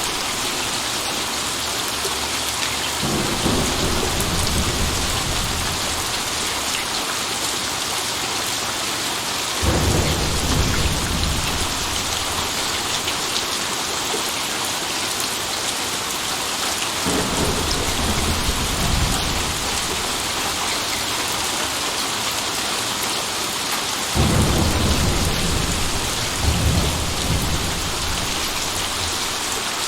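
Steady heavy rain falling, with rolls of thunder rumbling in four times, each swelling and fading over several seconds.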